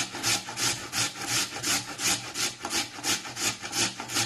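A raw potato grated on the coarse side of a metal box grater: steady, even rasping strokes, about three a second.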